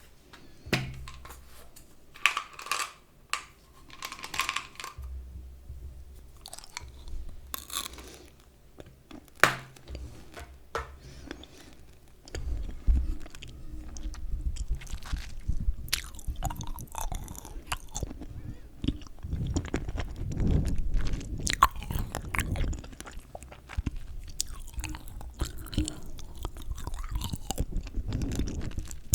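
Close-miked chewing gum ASMR: scattered clicks and short crackly bursts at first, then from about twelve seconds in, steady wet chewing, louder and denser.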